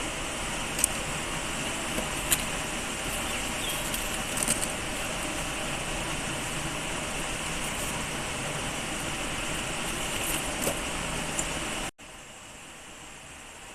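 Steady rush of flowing river water, with a few small sharp clicks over it. About twelve seconds in it cuts off suddenly to a quieter steady hiss.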